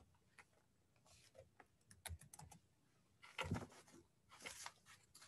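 Near-silent room tone with a few faint, scattered clicks, around two seconds in and again a little after three seconds.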